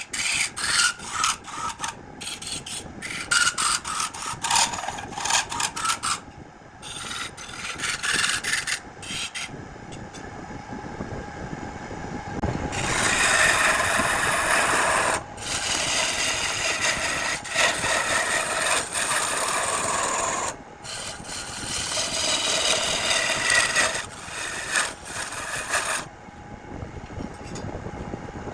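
Wood lathe spinning a piece of jackfruit wood with a tool working against the turning wood. The sound starts and stops abruptly many times in the first ten seconds, then runs more steadily through most of the rest.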